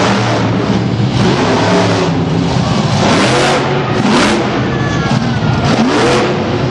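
Bigfoot monster truck engine revving hard in repeated surges, its pitch climbing and dropping with the throttle during a freestyle run.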